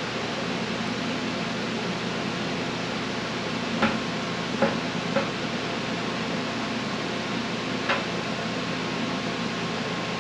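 A fuel pump and sending unit assembly being worked into the opening of a new steel fuel tank: four light metallic clicks and taps, three close together near the middle and one about eight seconds in, over a steady background hum.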